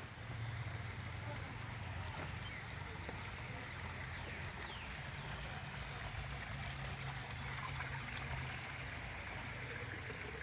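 Steady rush of running water from a garden waterfall and ponds, with a few faint, short falling chirps over it.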